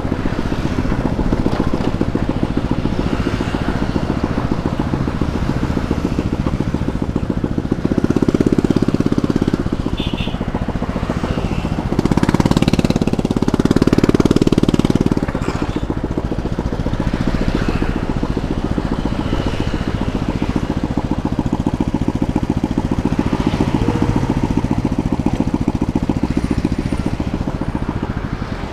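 A motor scooter's small engine running while riding, heard close up with a steady low rumble. It grows louder briefly about eight seconds in and again for a few seconds from about twelve seconds, then eases off near the end.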